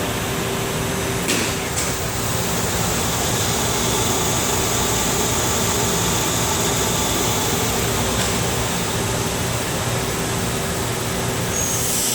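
Cincinnati 340-20 Twin Grip centerless grinder running: a steady machine hum with a high hiss, and two short clicks about a second and a half in.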